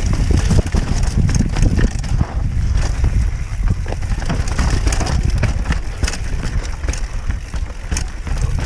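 Mountain bike descending a rough, dry, rocky singletrack: tyres crunching over loose stones and the bike rattling with frequent knocks, over steady wind buffeting a helmet-mounted microphone.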